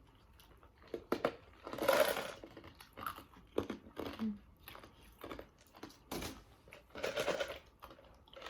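Eating sounds from chicken wings: chewing and crunching, with crinkling rustles and small clicks.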